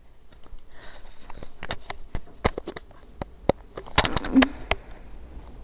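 Hands handling a laptop's power cord and plug: a string of light clicks and taps, busiest about four seconds in.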